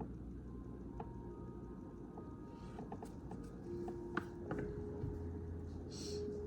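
Faint ambient background music with long held notes at a few different pitches, with a few light taps and clicks.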